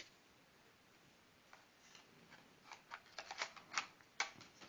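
Faint light clicks and rustles of cards and paper being handled, a few at first, then a quick cluster of them about three seconds in.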